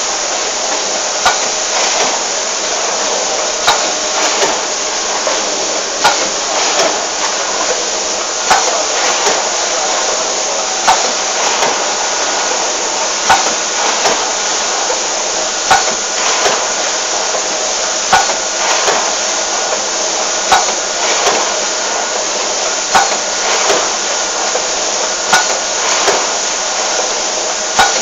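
Full-pneumatic pouch packing machine running through its cycle: a sharp clack about every two and a half seconds, with lighter clicks between, over a steady mechanical noise.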